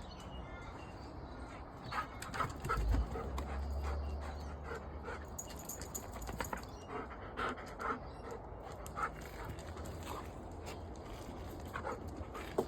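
A dog panting, with brief whimpers and scattered small noises; a low rumble comes about three seconds in.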